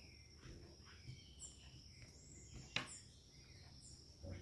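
Near silence with faint background: a steady high-pitched insect drone, three short high bird chirps, and a single sharp click a little before three seconds in.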